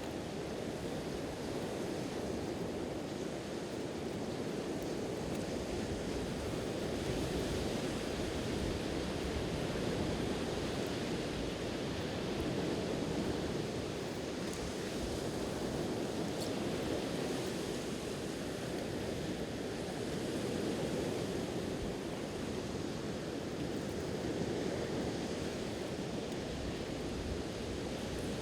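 Sea waves washing onto the shore, a steady surf that swells and eases slowly, with a faint crackle or two from the campfire about halfway through.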